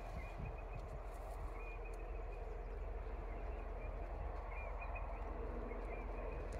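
Outdoor bush ambience: a steady low hum under an even background noise, with faint bird chirps here and there. A few sharp clicks come right at the end.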